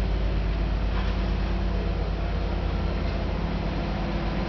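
Heavy engine of the crane lifting the boat, running steadily with a low, even hum.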